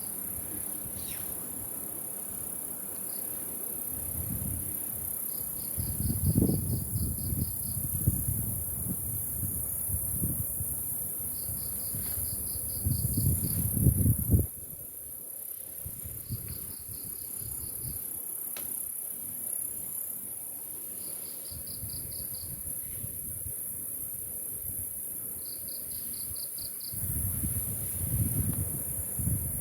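Night insect chorus: a steady, shrill, high-pitched drone, with a short quick trill of about eight to ten even pulses that repeats roughly every five seconds. A few bursts of low rumble come and go beneath it.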